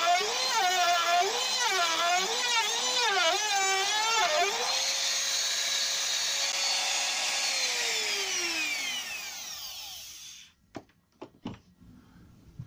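Small trim router cutting a finger-pull groove in beech along a fence: the motor whine wavers as the bit bites under load, runs steady once lifted clear about four and a half seconds in, then winds down with falling pitch after switch-off. A few light knocks near the end.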